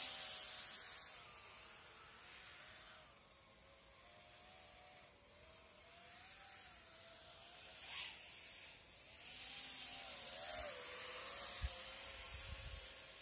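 XJB-145 micro FPV quadcopter's motors whining from a distance, the pitch wavering up and down with throttle, over a steady hiss. A few low bumps near the end.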